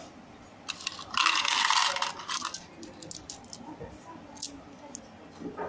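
Metal coins tipped out of a plastic coin-sorter bin into a hand. About a second in there is a dense jingling clatter lasting under a second, followed by scattered clinks as the coins are handled in the palm.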